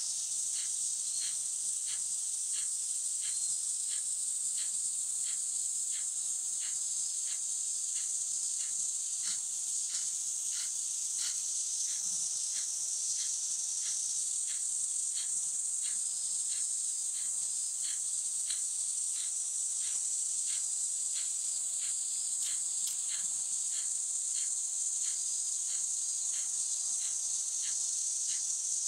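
Steady high-pitched drone of cicadas, with short, sharp breaths repeating about twice a second: forceful exhalations of a rapid yogic breathing practice.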